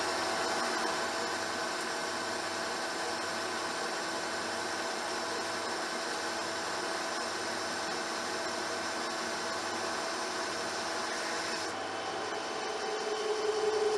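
Metal lathe running under power feed while turning a mild steel ring: a steady gear whine with a cutting hiss. About two seconds before the end the high hiss drops away and a humming tone comes in, then the sound cuts off abruptly.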